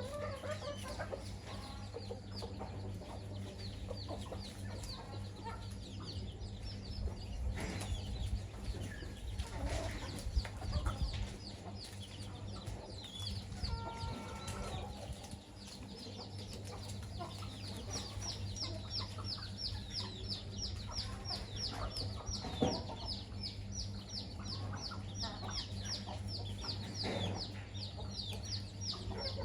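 A hen family of chickens: hens clucking among a flock of chicks peeping in quick, high, falling chirps. The peeps grow dense in the second half, over a steady low hum.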